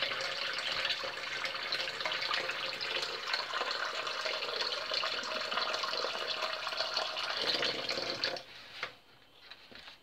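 Kitchen tap running steadily into the sink as raw liver is rinsed under it. The water stops suddenly about eight and a half seconds in.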